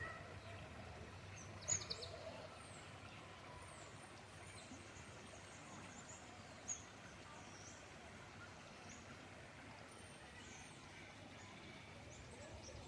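Faint, steady rush of a small stream, with small birds chirping briefly and high-pitched over it. A sharp click comes about two seconds in, and a smaller one near seven seconds.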